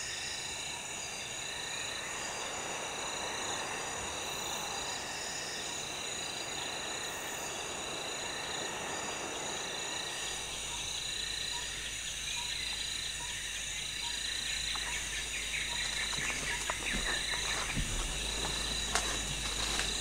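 Rainforest insects trilling steadily in several high, pulsing tones, the ambience of a Central African tropical forest. A low rumble comes in about halfway through, and a few faint clicks and rustles sound near the end.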